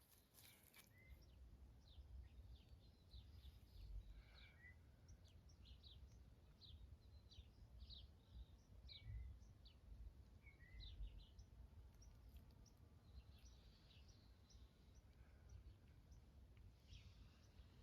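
Faint, high chirps of small birds calling on and off, over a low rumbling noise.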